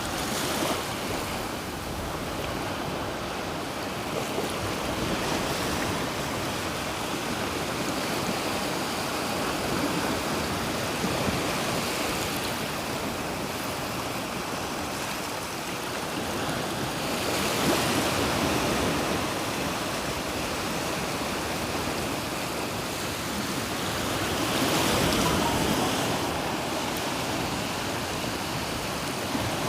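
Black Sea surf washing onto the beach: a steady wash of waves, swelling as bigger waves break a few times along the way.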